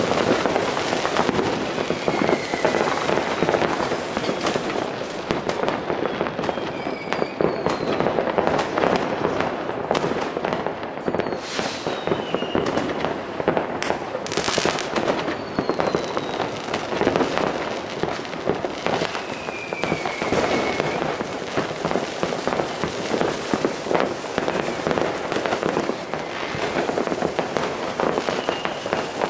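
New Year's Eve fireworks and firecrackers going off non-stop: a dense, continuous crackle of overlapping bangs. Several short falling whistles from whistling fireworks cut through it.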